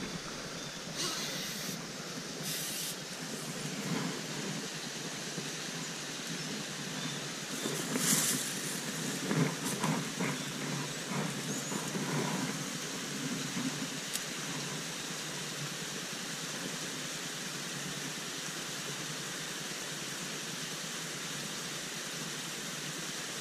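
Small stream running steadily over rocks into a pool, an even rushing hiss. A few short rustles and knocks come through in the first half.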